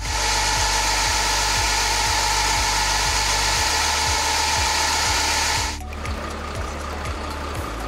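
Heavy truck running on a roller test bench, its drive tyres spinning fast on the steel rollers under load. It makes a loud, steady whining rush with a high hum and cuts off suddenly near the end. Background music with a steady beat plays under it.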